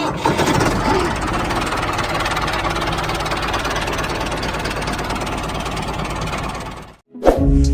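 A small engine running steadily with a fast, even beat, cutting off abruptly near the end.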